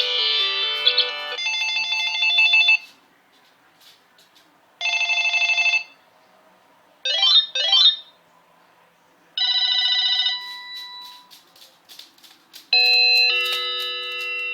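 Cordless phone cycling through its ringtones, playing about six short electronic tunes in turn through its small speaker: a quick melody, a rapid trill, a short chirp, two fast rising sweeps, a warble and a held chord. Each lasts about a second, with pauses between them.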